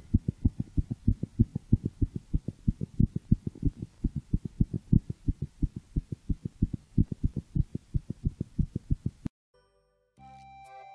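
A calico cat's heartbeat heard through a toy stethoscope, fast and regular at about three beats a second (180 a minute, the top of a cat's normal 120 to 180 range). It cuts off suddenly about nine seconds in, and music starts near the end.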